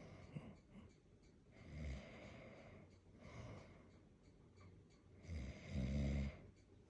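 A man snoring in his sleep: three snoring breaths a second or two apart, the last the loudest and deepest.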